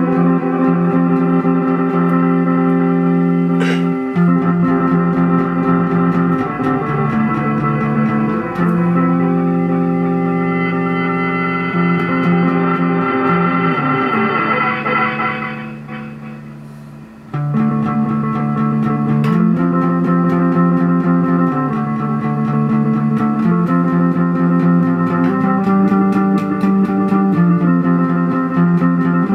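Guitar played through a Montreal Assembly Goodbye 24 digital effects pedal: sustained, layered notes that change every second or two. The sound fades away a little past the middle, then cuts back in suddenly.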